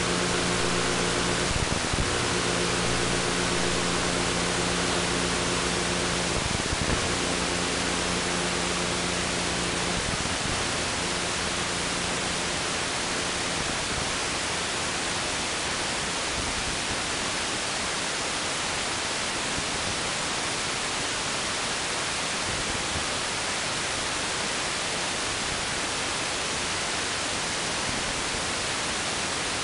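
Steady static hiss from an analog FPV video receiver's audio channel, carrying no sound from the aircraft. A low steady hum of several tones sits under it in the first half, breaking off briefly a few times before fading out about halfway.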